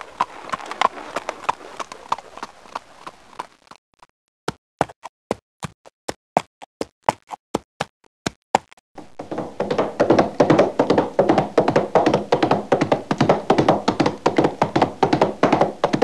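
Horse hoofbeats. A quick run of hoof strikes gives way, about four seconds in, to single clip-clops about three a second with gaps between. From about nine seconds a louder, rapid flurry of hoofbeats begins.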